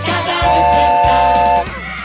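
Children's song music with a bass line and a steady beat, ending on a loud held note from about half a second in that cuts off shortly before the end.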